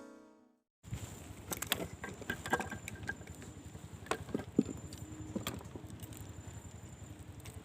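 The last notes of music die away, then from about a second in a low wind rumble on the microphone runs under scattered clicks and knocks; a faint thin high tone comes and goes.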